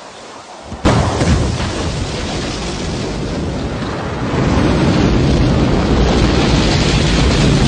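Rocket engine noise at launch: a loud, deep noise without pitch starts suddenly about a second in and gets louder again about four seconds in.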